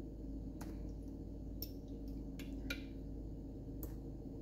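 A few faint, short clicks and small wet sounds as peach slices are taken by hand from a glass jar of home-canned peaches and dropped into a pan of batter, over a steady low hum.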